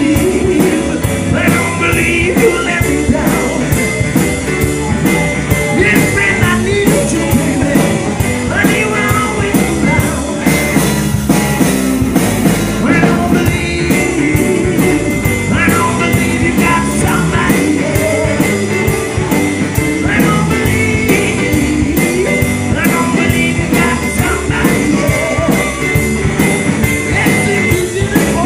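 Live rock band playing loudly with a steady beat: electric guitar, bass guitar, drum kit and Hammond keyboard, with vocals at the microphone.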